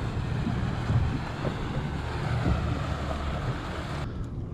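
Wind rumbling on the microphone, with sea water lapping at the boat's hull.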